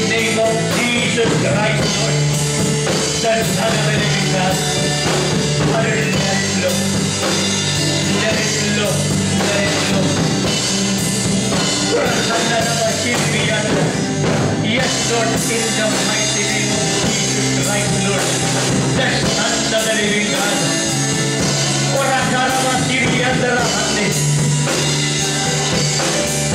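Upbeat worship music with a drum beat and singing, playing steadily throughout.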